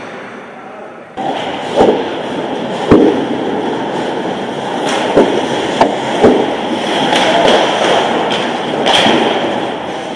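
Ice hockey play close to the goal: skates scraping the ice under a steady rink noise, with sticks and the puck clacking sharply about six times, the loudest about three seconds in. The sound jumps in abruptly about a second in.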